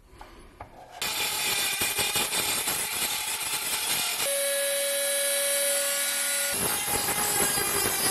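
A few light clicks of metal parts being handled. About a second in, a high-speed rotary tool with a small abrasive grinding stone starts grinding rust off a pressed-steel toy dump truck body. For about two seconds midway only the tool's steady motor whine is heard, then the grinding resumes.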